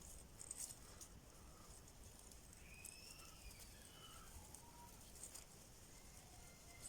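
Near silence: faint room tone with a few soft clicks and faint short chirps.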